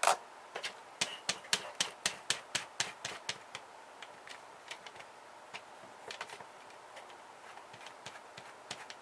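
Sharp clicks and taps of hand tools working on a small printer's stuck screw: a quick run about a second in, roughly four a second, then scattered fainter ones.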